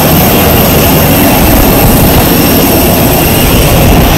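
Aircraft engines running close by: a loud, steady roar with no break.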